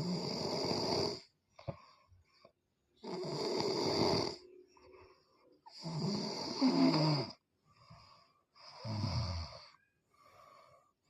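A person snoring: four loud, rough snores about three seconds apart, each lasting a second or so, with fainter breaths between them.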